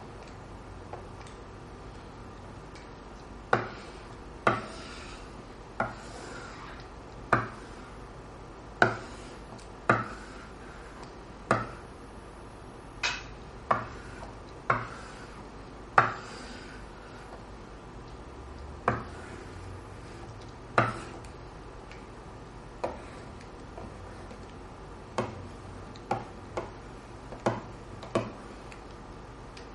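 A pen-shaped stylus tapping on a tabletop touch-display surface: about twenty sharp taps, irregularly spaced roughly one every second or two, some followed by a short ringing. A steady low hum runs underneath.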